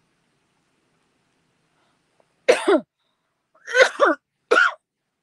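A woman coughing: a quick series of short, loud, throaty coughs in three bunches starting about halfway through, after a quiet start.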